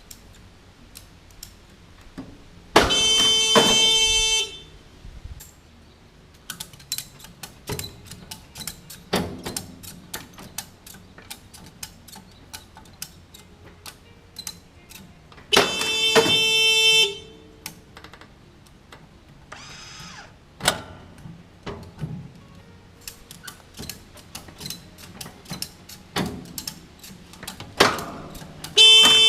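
Electronic beeper on a PLC-controlled mini round baler sounding three times, about 13 s apart, each a loud beep of about a second and a half: the signal that the bale has reached its set point and twining is triggered. Irregular clicks and knocks sound between the beeps.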